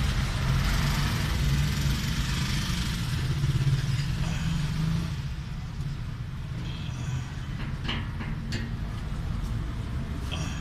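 Steady low hum of a motor vehicle engine running, with a hiss that is louder for the first five seconds and drops away about five seconds in. A few light clicks near the end come from a screwdriver turning the screws of a fuel gauge float sender flange on a steel fuel tank.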